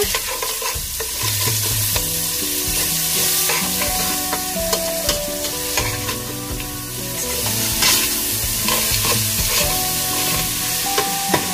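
Diced kielbasa, pepperoni and mushrooms frying in oil in a stainless steel pan, sizzling steadily while a slotted metal spoon stirs and scrapes through them.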